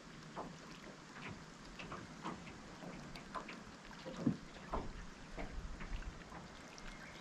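Faint, irregular light ticks and small water splashes around a small boat, with no engine running.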